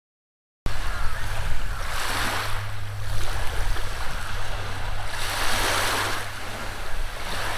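Small waves washing onto a sandy shore, surging twice, about two seconds and five seconds in, over a steady low hum. The sound starts after a brief moment of silence.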